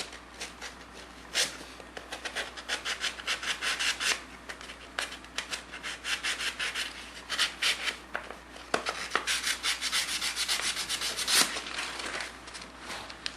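Emery cloth sanding a used spark plug's electrode by hand: rapid, scratchy back-and-forth strokes that clean the electrode for a good connection.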